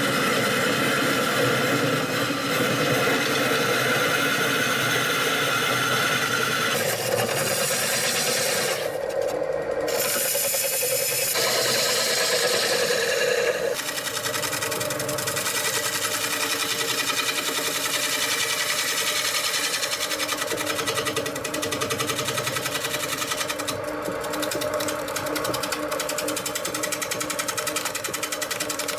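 Wood lathe spinning a large maple bowl while a bowl gouge cuts it, a steady hiss of wood shavings over the lathe's running with a fast, even flutter. The sound changes partway through.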